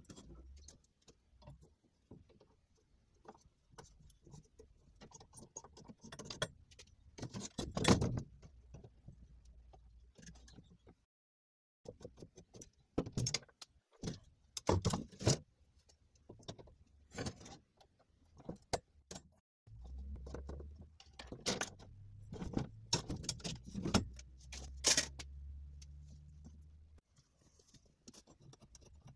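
Steel bicycle frame, fork and handlebars being handled and set down on a wooden plank table: irregular metallic clinks, knocks and rattles. A low steady hum runs underneath for several seconds in the second half.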